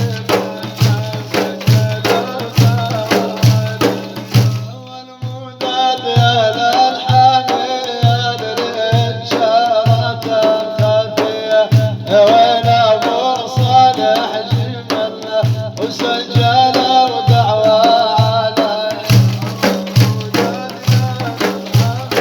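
Arabic song music: a steady low drum beat of about two strokes a second under a wavering melody line. The drums drop out briefly about five seconds in, then return.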